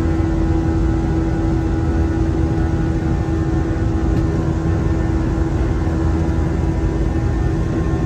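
Steady roar of an airliner's engines and rushing air, heard inside the cabin during the climb after takeoff, with a steady hum running through it.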